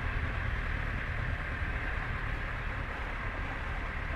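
Sailing yacht's inboard engine running steadily at low speed, a low drone with an even hiss over it.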